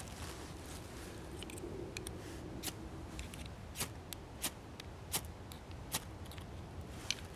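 Knife scraping against a ferro rod in a run of short, sharp strikes, about six of them less than a second apart in the second half, throwing sparks onto a pile of tinder to light a fire.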